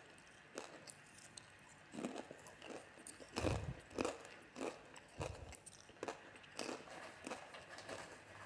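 Popcorn being crunched: a run of irregular crisp crackles, the loudest about three and a half and four seconds in.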